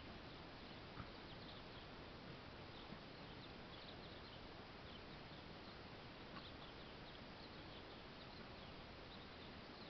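Near silence: a steady low hiss, with faint scattered high-pitched ticks and a small click about a second in.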